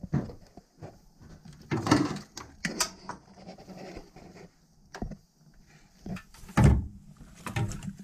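Scattered clicks, knocks and rustling of hands and tools being handled in an open engine bay, with a louder knock about two seconds in and a thump near seven seconds.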